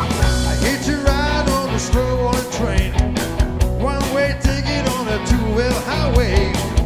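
Live blues-rock band playing: electric guitars, electric bass, keyboard and drums keep a steady beat, with a man singing lead.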